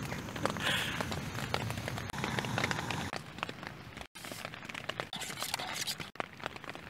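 Rain pattering on a tent, with small crackles and clinks of breakfast being cooked on a small gas camping stove. The sound cuts out abruptly twice.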